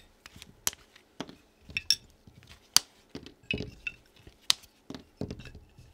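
Clear tube-shaped blade covers being pulled off Power Grip carving tools one at a time and dropped onto the desk. The sound is a series of sharp, irregular clicks and light clinks, with soft handling rustles between them.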